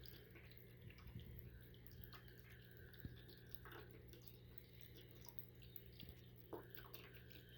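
Near silence: faint drips from a PetSafe pet water fountain and small scattered ticks of a rabbit lapping at the falling water, over a low steady hum.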